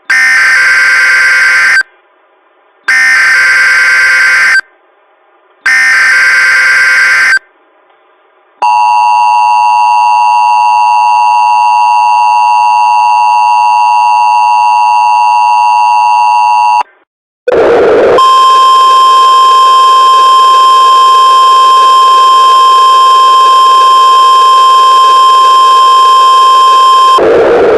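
Emergency Alert System header: three short bursts of screeching data tones about a second apart, then the steady two-tone attention signal for about eight seconds. After a brief gap comes a harsher steady tone over hiss for about ten seconds.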